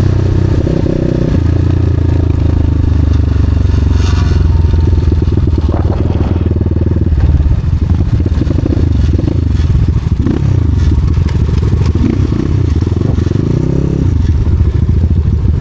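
Off-road motorcycle engine running under way, steady at first, then its revs rising and falling repeatedly in the second half.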